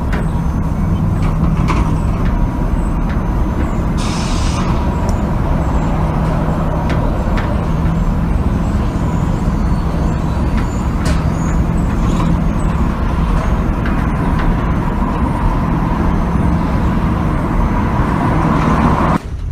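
Heavy metal gate moving with a steady grinding rumble, a thin squeal running through it and scattered clicks, plus a short hiss about four seconds in; the sound cuts off abruptly near the end.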